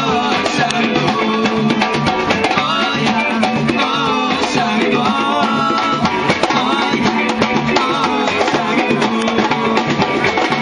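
Samba band playing live: a bass drum beat about twice a second under dense, rapid drum hits, with a melody over the top.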